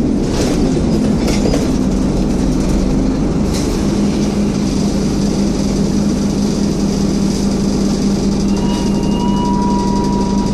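Scania N230UD double-decker bus running, with the steady whine of its engine cooling fan over the diesel engine's rumble. A few rattling clicks come in the first second or so, and a thin higher squeal sounds near the end.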